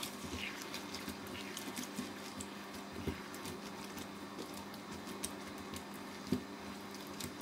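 Beef and snow peas sizzling in sauce in a non-stick pan as a silicone spatula stirs and turns them: scattered small crackles and soft scrapes over a steady low hum.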